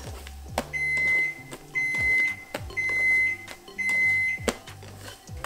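Oven's preheat-done alert: four beeps at one steady high pitch, each about half a second long and about a second apart, signalling that the oven has reached its set temperature of 350°F.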